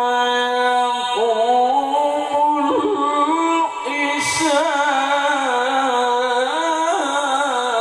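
A male qari's melodic Qur'an recitation (tilawah), sung into a microphone: long held notes with wavering, ornamented turns of pitch, with a brief break a little before the middle.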